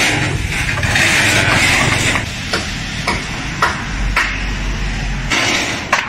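Corrugated sheet-metal roofing panel being lifted and handled, the thin sheet flexing and rattling, with four sharp metallic knocks in the middle.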